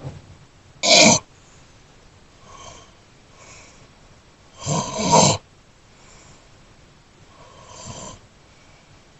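Snoring in irregular breaths: a short, loud snore about a second in and a longer, loud one around five seconds, with fainter snoring breaths between and near the end.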